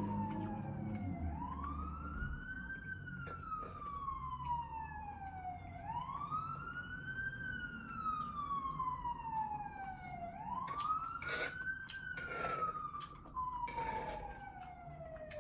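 Emergency vehicle siren wailing. Its pitch rises quickly, then falls slowly, repeating about every four and a half seconds.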